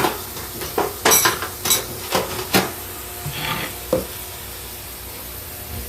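Clatter of dishes and utensils being handled: several sharp clicks and knocks in the first four seconds.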